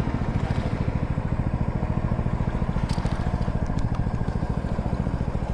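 A small engine running at a steady speed, with an even rapid beat; a brief click sounds about three seconds in.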